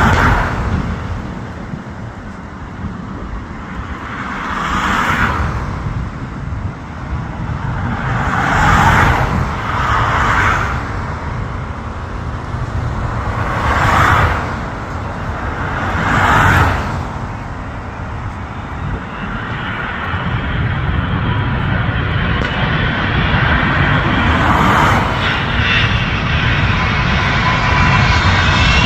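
Airbus A380 jet engines rumbling as the airliner approaches, growing louder over the second half with a faint rising whine. Several vehicles pass close by, each a brief swelling whoosh.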